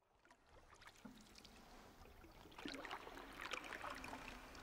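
Faint canoe paddle strokes in calm water: soft splashes, drips and trickles off the blade, growing denser and louder about halfway through.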